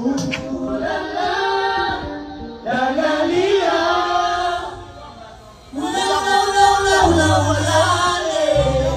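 A song with sung vocals played over a sound system, in long held phrases with a brief drop in level midway; a deep bass comes in near the end.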